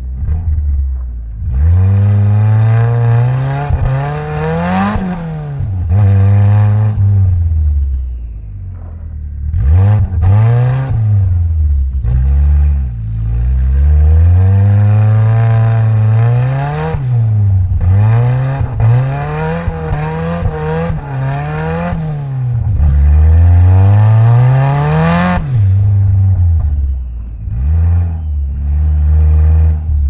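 Mitsubishi Lancer Evolution X's turbocharged 2.0-litre four-cylinder engine, tuned to about 500 hp, heard from inside the car, revving up and dropping back many times as it is driven through corners in low gears. Several long pulls climb steeply before the revs fall away sharply, with a thin whine that rises and falls with the engine.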